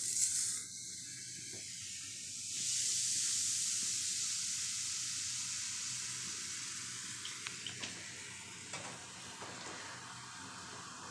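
Fizzing bath salts poured into a glass jar of water and fizzing: a steady high hiss that swells about two and a half seconds in, then slowly dies away.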